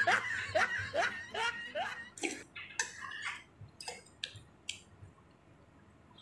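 A man giggles, a run of about five short rising laughs, then eats noodle soup with a few sharp wet smacks and clicks that thin out, with quiet in the last second.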